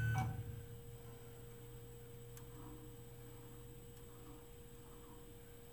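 Quiet steady electrical hum with a thin, steady high tone running over it; a faint click about two and a half seconds in.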